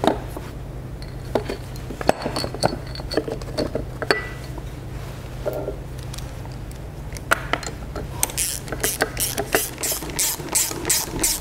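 Scattered metal clinks and knocks as a replacement starter motor is handled and set against an outboard's powerhead. From about eight seconds in, a socket ratchet clicks steadily, about four clicks a second, as the starter's mounting bolts are run in.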